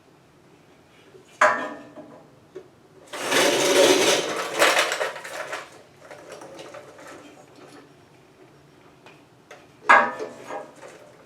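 Hand work on a truck's wiring: a sharp clank, then a couple of seconds of dense rasping noise, and another clank near the end.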